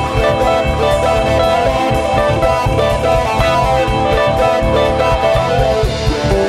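Live rock band playing through a venue PA, with electric guitar notes to the fore over bass and drums.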